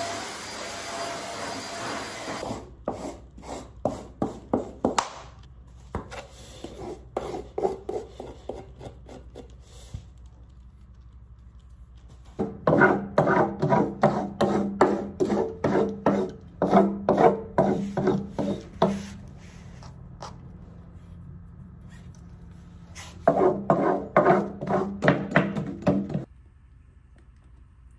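A stick vacuum cleaner runs briefly and cuts off about two seconds in. Then a hand tool scrapes cat hair off the carpeted base of a cat scratching post in fast repeated strokes, about three or four a second, in several runs with pauses, loudest in the middle and near the end.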